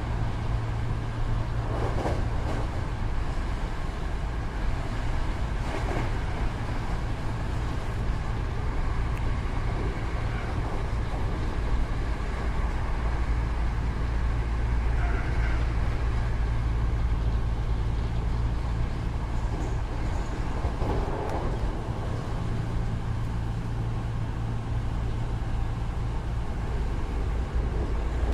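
Hankyu 8000-series electric train running steadily at speed, a continuous rumble of wheels on rail over a constant low motor hum.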